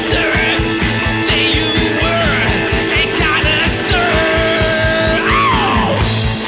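Rock song soundtrack with a steady drum beat, guitar and singing; a long held note gives way to a falling glide near the end.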